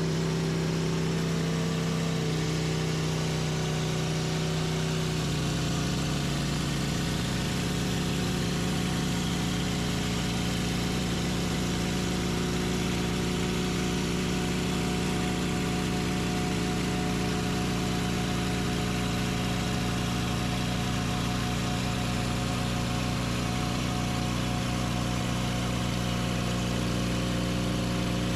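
Sawmill engine running steadily, its pitch shifting slightly about five seconds in and then holding.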